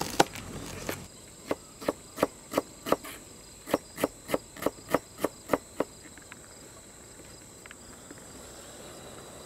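Chef's knife chopping young ginger on a plastic cutting board: a run of about a dozen sharp knocks, roughly three a second with one short pause, stopping about six seconds in. A faint steady high insect drone runs underneath.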